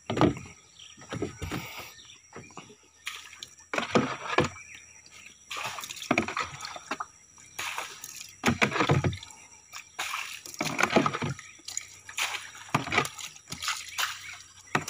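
Water being bailed out of a small boat with a plastic scoop: repeated scoop-and-pour sloshes and splashes, one every second or two.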